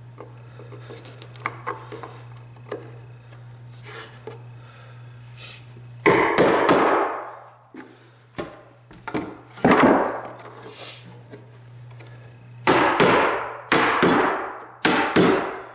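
Claw hammer driving the nails of a wooden carpet tack strip into a wood floor: about five loud blows, each ringing on briefly, spaced one to three seconds apart. They follow several seconds of faint taps and clicks, over a steady low hum.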